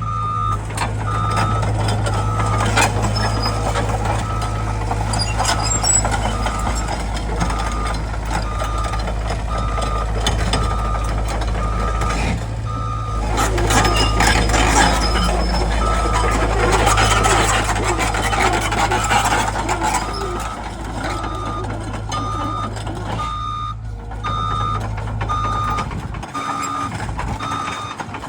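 Liugong 909ECR excavator's diesel engine running under a steady hum, with its motion alarm beeping repeatedly and a rattling mechanical noise from the working machine.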